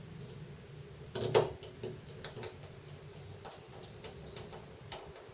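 Small clicks and taps of hands and a precision screwdriver working on a Samsung Galaxy Note 2's plastic back housing, with a louder knock about a second in and scattered light clicks after.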